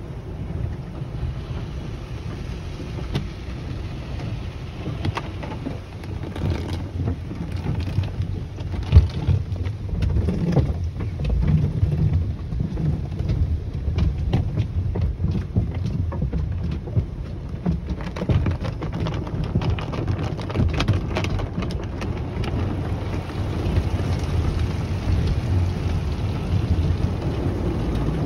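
Automatic car wash heard from inside the car: water spraying and drumming on the body and glass over a steady low rumble of the wash machinery, with cloth wash strips slapping and swishing across the windshield in many short knocks through the middle. A single sharper thump about nine seconds in.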